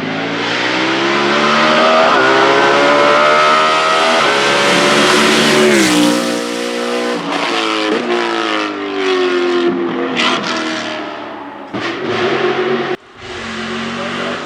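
BMW Z4 GT3 race car's naturally aspirated V8 accelerating hard. The engine pitch climbs steadily, falls sharply at an upshift about six seconds in, then climbs and drops again through several more quick gear changes. The sound breaks off suddenly near the end.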